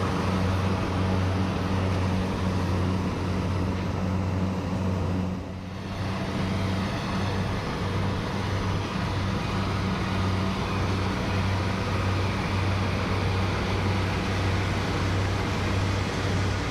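Rice combine harvester's engine running with a steady low drone, dipping briefly about five and a half seconds in.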